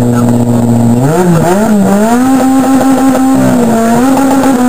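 Race car engine revving while the car stands at the start line. It runs steadily for about a second, then the throttle is blipped so the revs swing up and down and are held high, with a brief dip a little after three seconds.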